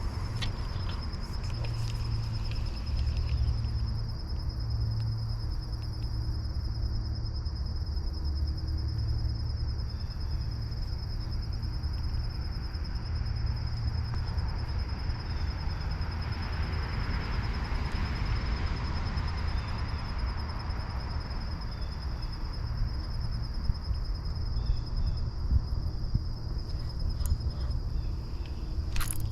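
Insects trilling in one steady, high, unbroken chorus, over a continuous low rumble.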